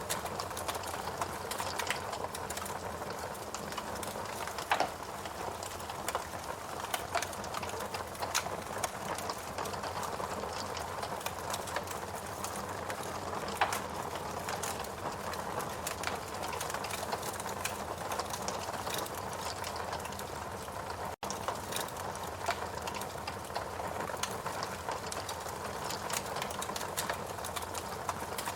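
Wood fire burning in a fireplace: a steady hiss of flames with frequent small, irregular crackles and a couple of louder pops, about five and fourteen seconds in.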